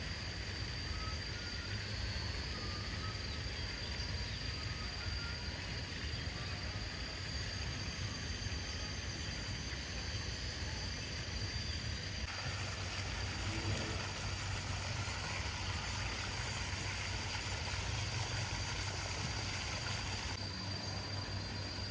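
Steady outdoor background ambience: a low rumble under an even hiss, with a thin constant high tone running through it. The hiss turns brighter about halfway through.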